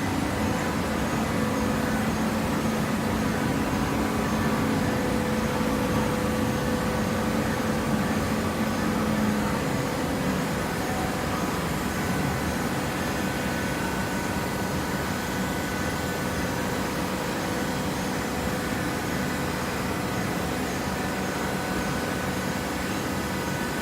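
Coconut coir fiber baler running with a steady mechanical noise. A low hum fades out about ten seconds in, and fainter higher tones carry on.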